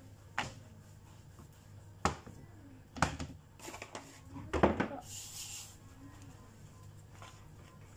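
Scattered sharp knocks and taps from a rolling pin and hands on a plastic cutting board as thin flatbread dough is rolled out and handled, the loudest a little past halfway. A short hiss follows about five seconds in.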